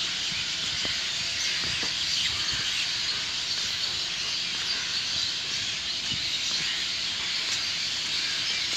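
Dawn chorus of many birds calling at once, so dense that it blends into a steady high-pitched hiss.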